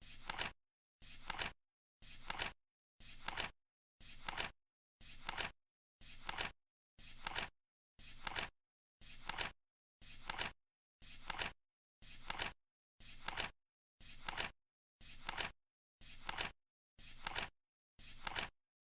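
Flip clock's digit flaps turning over about once a second as the countdown runs, each flip a brief rustle that grows louder and stops abruptly.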